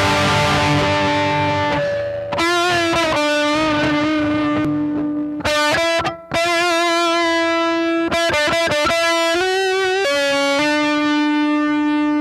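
Electric guitar playing a rock lead line: a ringing chord, then single held notes with vibrato, and a quick run of short notes about two-thirds of the way through.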